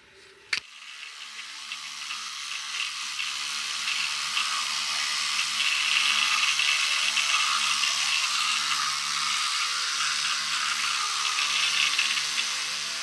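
Two electric toothbrushes running in mouths during brushing: a steady motor buzz under a scrubbing hiss of bristles on teeth, starting about half a second in.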